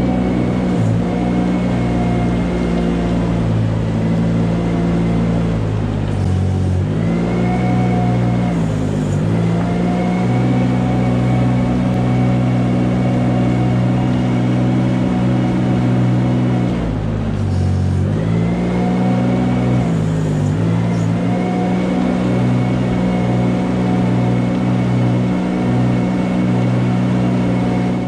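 Engine of a small ride-on manure scraper running steadily as it pushes its blade along the slatted cowshed floor. The engine note drops and climbs back a few times.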